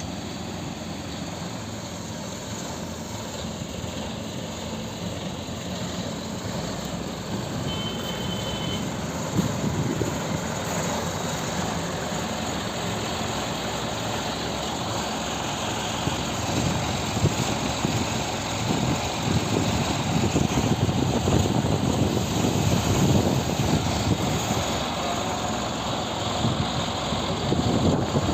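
A crane's engine running steadily at a training yard, growing louder and more uneven in the second half. A short high beep sounds about eight seconds in.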